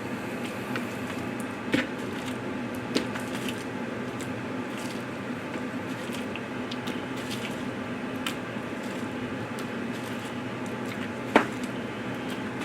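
Raw boneless chicken thighs being handled, with soft wet squishing, and a few sharp knocks, the loudest near the end, over a steady low hum.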